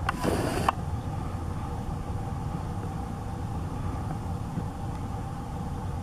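A steady low outdoor rumble, like distant traffic or wind. In the first second a brief rushing burst sounds, with a sharp click at its start and end.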